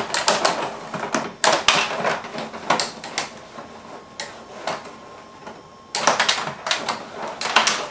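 Rod table hockey game in play: rapid clicking and clattering of the players' rods, plastic figures and puck against the boards. It comes in two busy spells with a sparser stretch in the middle.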